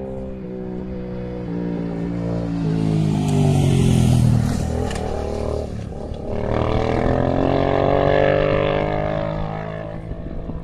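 Aprilia Dorsoduro 1200's V-twin engine at full acceleration, its pitch stepping up through the gears, passing close by at about four seconds with a drop in pitch. The revs climb again and the engine note fades near the end.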